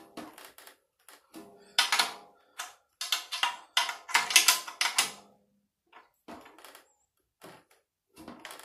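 Metal drum key turning the tension rods of a 10-inch Pearl Session Custom tom, an irregular run of sharp clicks and rattles that is thickest and loudest in the middle, as the head is brought up to tension.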